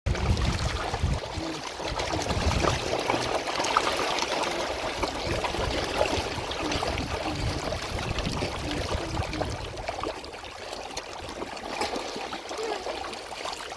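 Water trickling and running steadily, with an irregular low rumble underneath for the first ten seconds or so.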